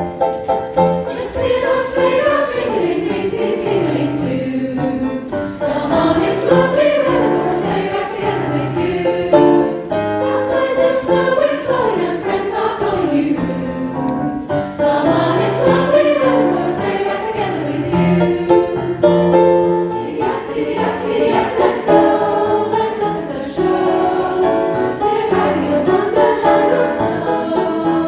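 Choir singing a Christmas song with keyboard accompaniment.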